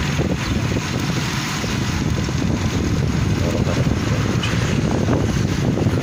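Wind buffeting the microphone with a steady low rumble of a vehicle moving along the road.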